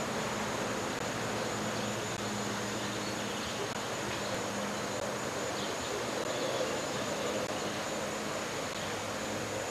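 Steady hiss of old camcorder tape audio with faint outdoor background, a constant high whine and a low hum running underneath.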